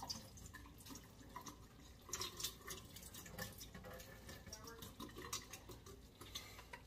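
Faint, scattered small taps and wet clicks of hands laying peach slices onto chicken in a baking pan.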